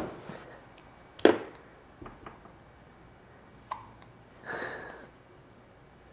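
Newborn baby hiccuping: short sharp hics, the loudest about a second in, with weaker ones after it and a soft breathy sound later on.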